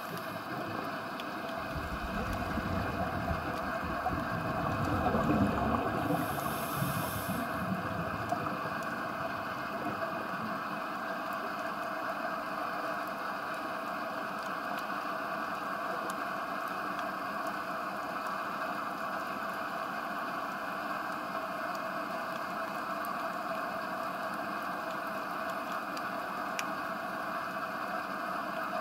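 Underwater ambient noise heard through a camera's waterproof housing: a steady hiss, louder with a low swirl of water movement from about two to eight seconds in, with faint scattered clicks.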